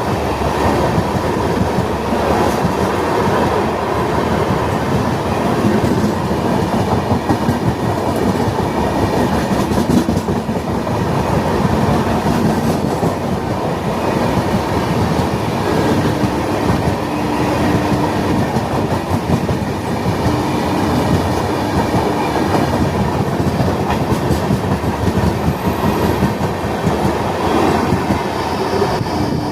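Express passenger train running through a station without stopping: a continuous loud rumble and clatter of coaches over the rails. Two long steady tones sound a little past the middle.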